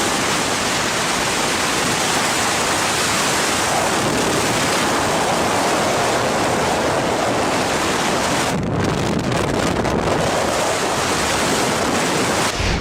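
Strong wind rushing and buffeting the microphone as one steady, dense noise; about two-thirds of the way in it turns less hissy and more rumbling.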